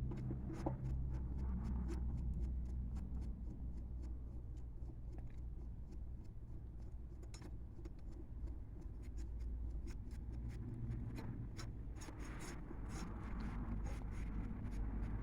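Faint scraping, rubbing and small clicks of hand-refitting a mower blade and threading its bolt, over a steady low hum.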